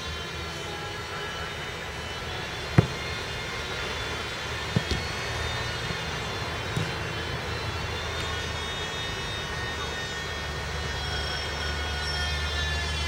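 Aircraft passing overhead: a steady drone with a whine that slowly shifts in pitch and grows a little louder toward the end. A football is struck sharply about three seconds in, with two fainter thuds around five and seven seconds.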